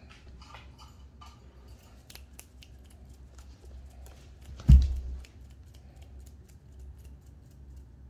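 Cat's claws snagging and picking at the carpet of a cat tree as it rolls and paws at the post: scattered light clicks. One loud low thump comes a little past halfway through.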